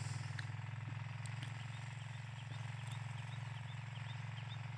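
Faint, steady low engine hum with a fast, even flutter, like a motor idling. Faint short high chirps repeat through it several times a second.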